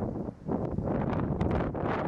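Strong gusty wind buffeting the microphone, with a brief lull about a third of a second in.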